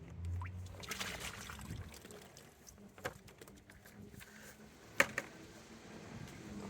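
Floating plastic balls and pool-noodle pieces being handled in a water-filled fountain basin, with light water splashing. Sharp knocks come about three and five seconds in, the one at five the loudest.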